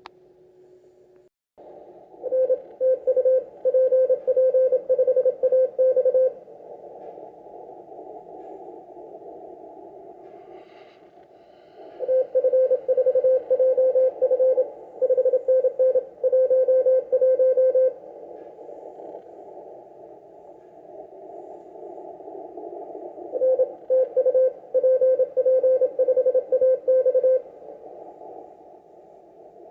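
Morse code (CW) tone from an amateur radio, a single steady pitch keyed on and off in quick dots and dashes. It comes in three runs of about four to six seconds each, with the radio's hiss in between.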